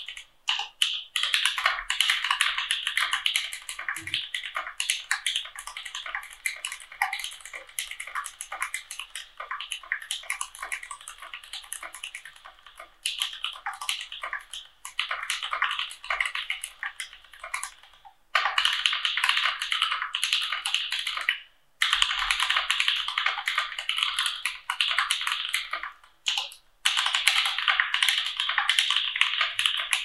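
Fast typing on a mechanical keyboard with Gateron Milky Brown tactile switches, lightly lubed with Krytox GPL105, in an ID80 case: a dense run of key clacks with a few short pauses.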